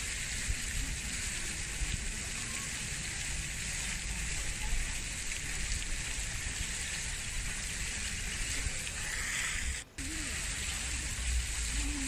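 Steady outdoor hiss with wind rumbling on the microphone, around a flock of feral pigeons feeding on a path. The sound cuts out for an instant about ten seconds in, and soft, short pigeon coos follow near the end.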